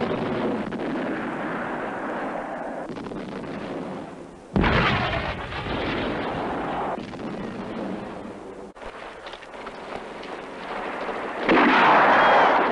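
Artillery shells exploding in a film battle scene: a continuous rumble of shelling with one sudden heavy blast about four and a half seconds in that rumbles away over a couple of seconds. Near the end a louder, denser din of battle noise sets in.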